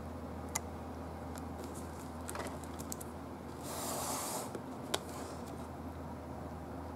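Shrink-wrapped cardboard board-game box handled and turned over in the hands: light crackling of the plastic wrap, a swishing rustle just past the middle as the box turns, and two sharp ticks.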